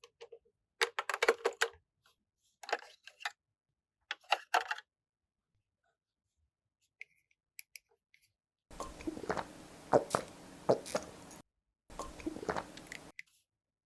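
Small plastic toy pieces and packaging being handled, clicking in short bursts, then two longer noisy stretches of clicking and rustling near the end.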